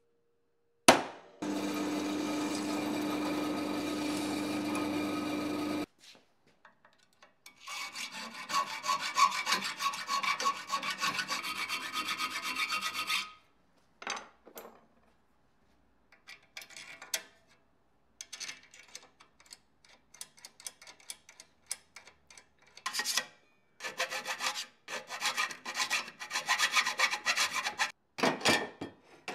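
Workshop tool work: a sharp knock, then a power tool runs steadily for about four seconds and stops. A harsher rasping run of about six seconds follows, then repeated short, irregular scraping strokes.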